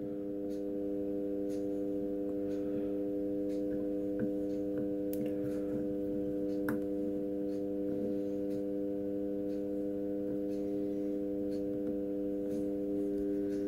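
Steady low buzzing test tone with several overtones, played through a car radio's amplifier and speaker: the signal that draws the sine-wave trace on the CRT oscilloscope. Faint scattered clicks sit under it.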